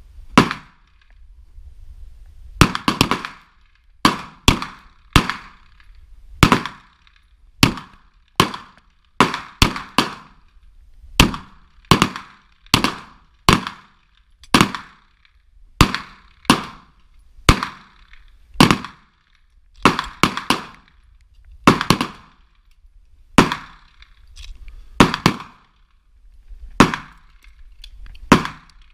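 A string of semi-automatic pistol shots fired from close to the microphone, each followed by a short echo. They come one to two a second, many in quick pairs.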